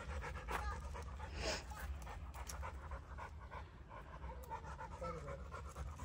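A pit bull panting with her tongue out, over a steady low rumble.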